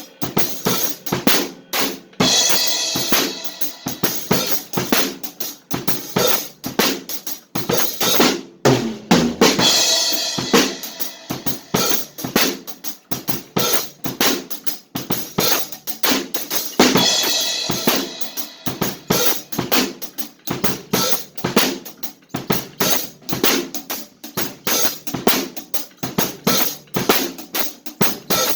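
Drum kit being played in a fast, steady rhythm of snare and drum hits, with cymbal crashes about 2, 10 and 17 seconds in.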